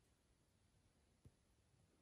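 Near silence: room tone, with one faint, soft thump about a second in.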